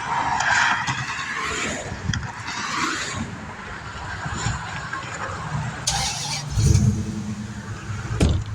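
Passing traffic at the roadside, with a squealing sound for the first three seconds, a short sharp hiss about six seconds in, and a heavy vehicle's low engine drone rising near the end.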